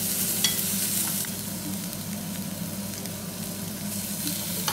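Haddock fillets sizzling steadily in a non-stick frying pan, with a few short clicks as a spatula lifts them out, over a low steady hum.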